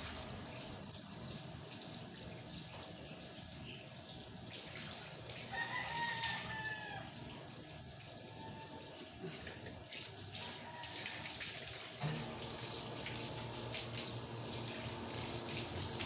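A rooster crows once, about six seconds in, over steady running water. The water noise grows fuller in the last few seconds as a garden hose is run over a wet dog's coat.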